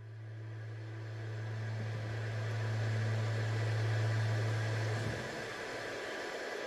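Lofi background music: a held low bass note under a swelling hiss. The note drops out about five seconds in.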